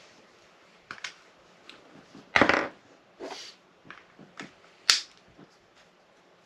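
Small handling sounds from threading a jig-tying bobbin: scattered light clicks and rustles, with a brief louder scrape about two and a half seconds in and a sharp click near five seconds.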